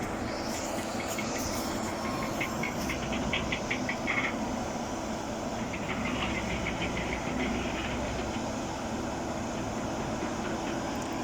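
Steady mechanical running noise and hiss from yacht-launching machinery, with two stretches of rapid metallic clicking, about two and a half seconds in and again about six seconds in.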